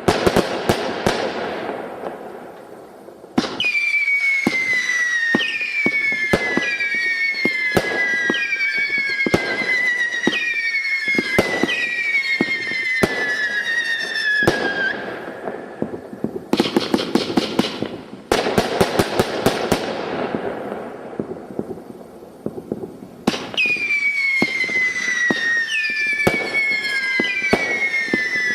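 Consumer firework barrage cakes firing. Stretches of dense crackling alternate with runs of sharp shots, each carrying a whistle that falls in pitch, several overlapping at a time.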